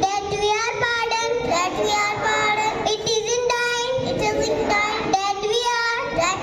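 Children singing a song, steady and continuous, with held notes.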